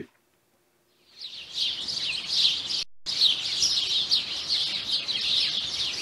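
A chorus of small songbirds chirping, many quick overlapping calls. It fades in about a second in, breaks off for an instant just before three seconds in, and carries on.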